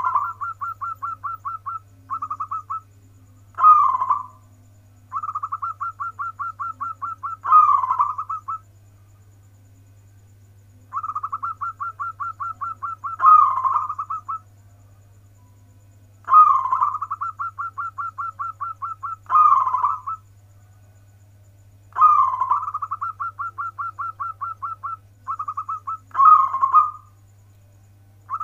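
Zebra dove (local Indonesian perkutut) singing: phrases of fast, evenly spaced cooing notes broken by short pauses, each with one or two louder accented coos.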